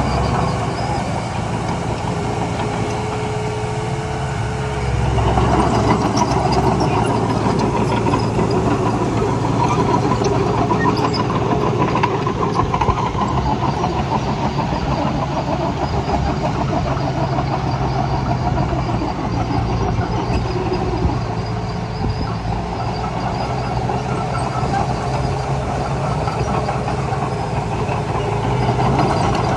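Heavy earthmoving machine's engine running continuously, stepping up louder about five seconds in as it works under load.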